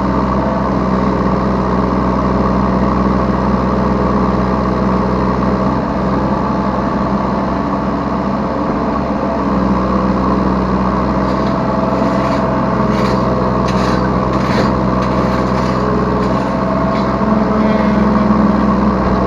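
Yanmar B3 Sigma mini excavator's diesel engine running steadily under load, heard from the operator's seat, with a series of sharp clanks and knocks a little past halfway.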